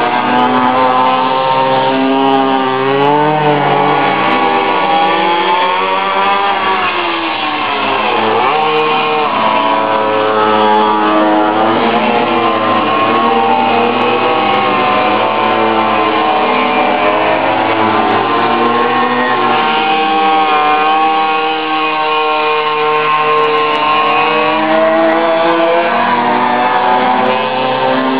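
Several minibike engines revving up and down as the bikes lap, their pitches rising and falling and overlapping one another.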